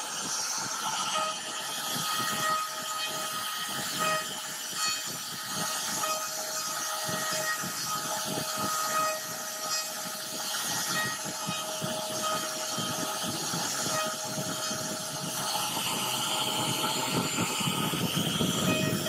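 CNC router spindle carving a wooden panel: a steady whine from the spindle over the uneven noise of the bit cutting through the wood.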